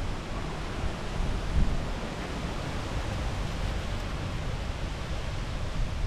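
Strong wind rushing over the microphone, a steady hiss with low gusty rumbles, the biggest gust about a second and a half in.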